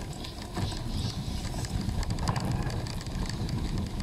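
Wind buffeting the microphone on a moving bicycle, over the rolling noise of tyres on a dirt path, with scattered small clicks and rattles from the bike.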